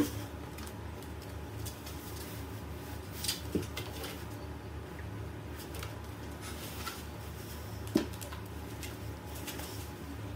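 Cardboard box scuffed and knocked as a cat squeezes itself inside, a few soft knocks with the sharpest about eight seconds in, over a steady low room hum.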